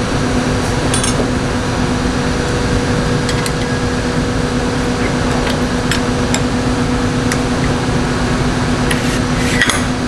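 Steady workshop machine hum with a low tone, and scattered light metal clinks as a bent steel rod is handled on a hand-bending jig clamped in a vise and lifted out, the clinks coming in a cluster near the end.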